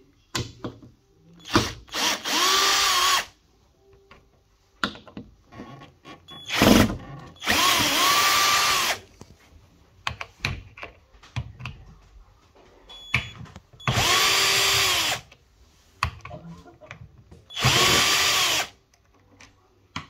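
Cordless drill-driver backing screws out of the plastic fixing brackets of an integrated fridge, run in four short bursts of a second or so, the motor whirring up and dropping away each time. A short thud comes just before the second burst.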